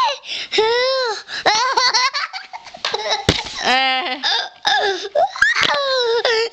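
A young child laughing and giving high, wordless cries that rise and fall in pitch, in short bursts with brief pauses between them.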